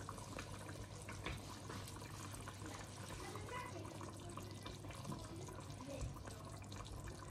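Thick tamarind curry simmering in a large pot, bubbling faintly with many small pops and gurgles.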